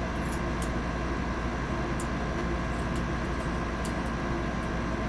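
Steady background hum and hiss with a few faint, light clicks scattered through.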